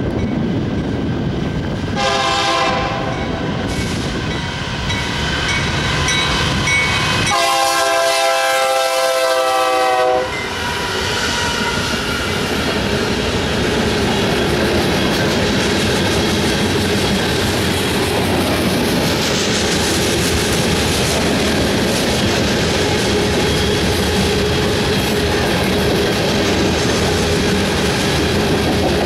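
Diesel freight locomotive horn sounding for a level crossing: a blast about 2 s in, then a longer, louder one from about 7 to 10 s. Then two GE C44-9W (Dash 9) locomotives pass, followed by loaded covered hopper cars rolling by with steady wheel clatter and rumble.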